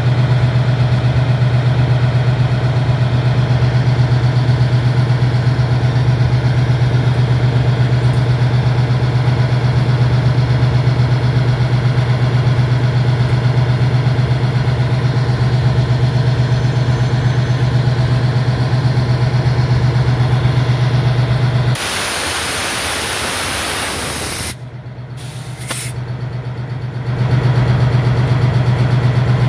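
Diesel engine idling with a steady low hum. About 22 seconds in it is overtaken by a sudden loud rushing noise for a couple of seconds, then drops back and returns near the end.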